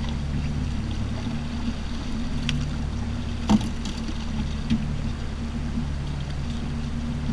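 Outboard motor running steadily, a low even drone. A single sharp knock about three and a half seconds in.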